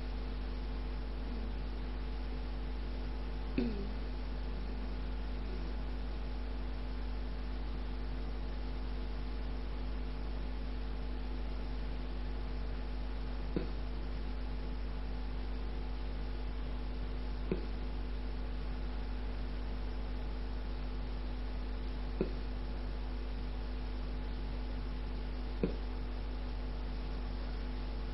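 Steady low electrical hum with a faint hiss, broken by about five short, faint clicks spread a few seconds apart.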